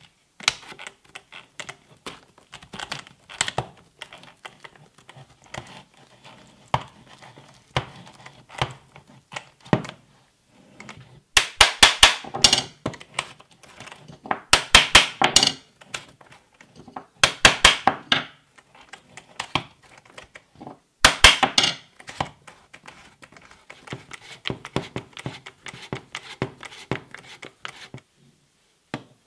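Keyless chuck of a Makita 8.4 V cordless drill twisted by hand, giving four short bursts of rapid clicking about three seconds apart, between quieter knocks and rubs of the drill being handled on a wooden bench.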